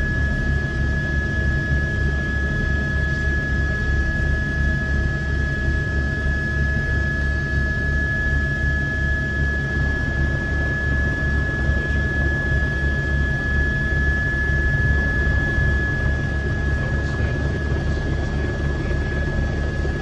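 Helicopter running steadily in flight, heard from on board: a fast low throb from the rotor and engine under a steady rushing noise, with a constant high-pitched whine.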